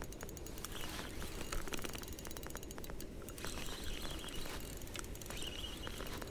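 Spinning reel being cranked to retrieve a lure, its gears giving a rapid, dense ticking, with faint bird chirps in the background.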